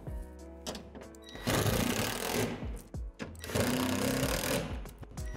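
Cordless drill driving screws to fasten a shed wall support, run twice for about a second each, over background music.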